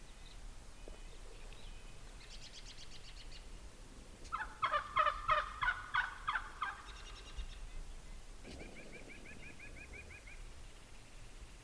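A close wild Merriam's turkey gobbler gives one loud, rattling gobble about four seconds in. Fainter, higher bird chirps come before and after it.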